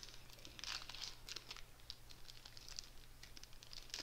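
Pokémon trading cards being handled and flipped through: soft rustling and crinkling with small flicks and taps, thickest about a second in.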